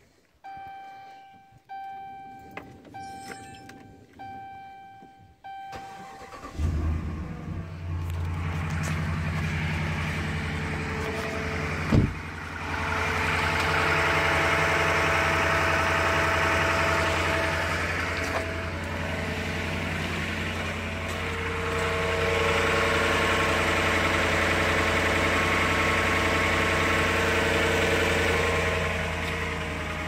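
Dashboard chimes sound about once a second, then the 2011 Ram 1500's 5.7 L Hemi V8 starts about six seconds in, a cold start after four days sitting, and settles into a steady idle with no tapping from the engine. A single sharp knock about twelve seconds in.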